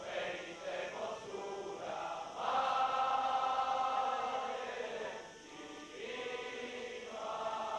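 Massed male voices singing a slow hymn in long held notes. A loud sustained phrase comes in about two and a half seconds in and breaks off after about five seconds, and the singing then resumes.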